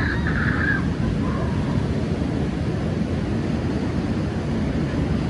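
Wind buffeting the microphone over the steady wash of surf breaking on a sandy beach, a loud, rough rumble. A brief high call cuts through near the start.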